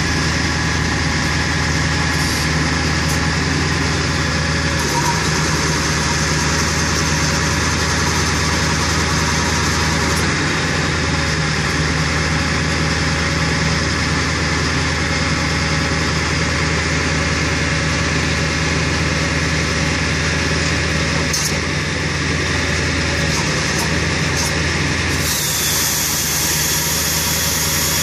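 Ford F-550 tow truck's engine running steadily at a raised idle with the PTO engaged to drive the bed and wheel-lift hydraulics. A higher hiss comes in near the end.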